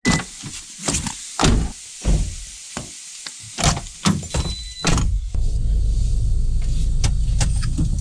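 Car door opening and a run of clicks and thumps as someone climbs into the driver's seat. About five seconds in, the car's engine starts and runs steadily with a low rumble.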